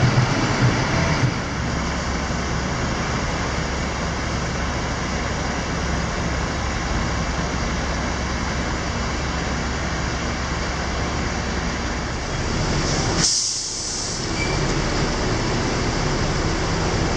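Diesel coach engines idling with a steady low rumble. About 13 seconds in there is a short, sharp hiss of air, and then the idling goes on.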